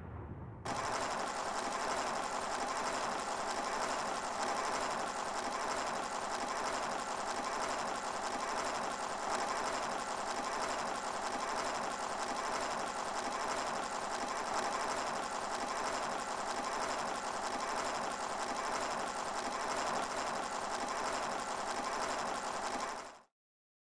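Film projector running: a fast, steady mechanical clatter that starts about a second in and cuts off suddenly shortly before the end.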